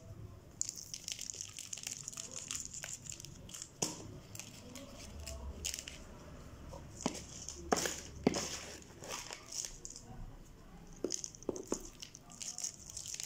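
Coarse potting mix of pumice, zeolite and coconut coir being scooped from a plastic bowl with a small nursery pot and poured into a plastic planter: gritty rustling and crunching with the crinkle of gloved hands. Several sharp clicks of grit and pot against plastic are scattered through it, the loudest a little past halfway.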